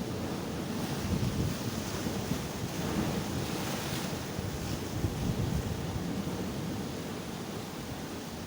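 Sea waves breaking and washing onto the shore, a swelling hiss of surf, with wind buffeting the microphone in low rumbling gusts.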